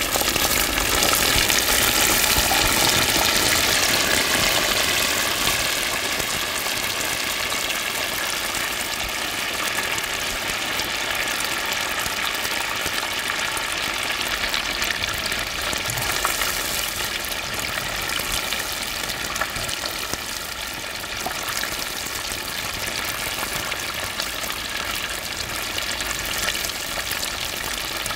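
Batter-coated chicken pieces going into hot oil in a cast-iron gamasot cauldron for their second frying: a loud rush of sizzling as they enter, easing after about five seconds into steady, dense deep-frying.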